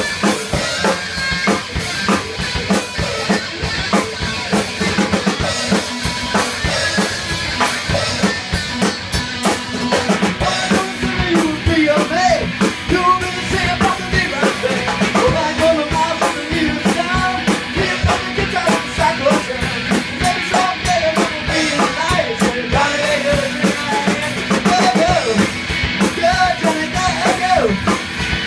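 Electric guitar and drum kit playing loud, driving rock and roll together, the drums keeping a steady beat while the guitar plays melodic lines with pitch bends through the later part.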